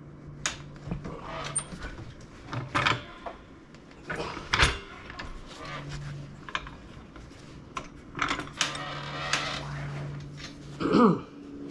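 Knocks, clatter and scraping of a jack being worked into place under the rear of an ATV as it is lifted. A low hum comes and goes behind, and a short squeal slides up and down near the end.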